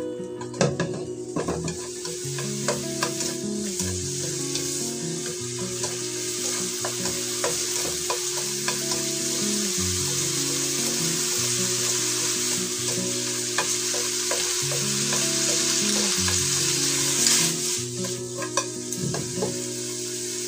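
Bean sprouts, pork and cabbage sizzling steadily in a hot non-stick wok over high heat, stir-fried with chopsticks, with scattered clicks of the chopsticks against the pan.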